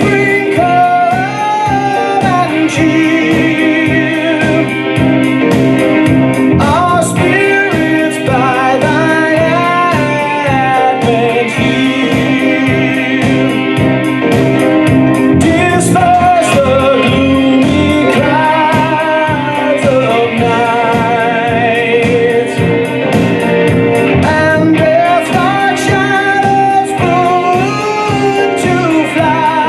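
A song: a solo singing voice with a wavering vibrato carries the melody over steady instrumental backing.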